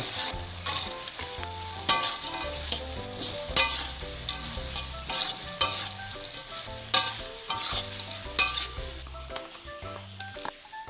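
Food frying and sizzling in hot oil in a pan while a spatula stirs it, with repeated sharp scrapes against the pan.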